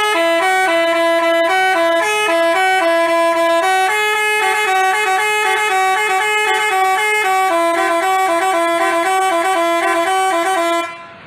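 Telolet basuri musical horn playing a quick tune of short, changing notes, cutting off suddenly near the end.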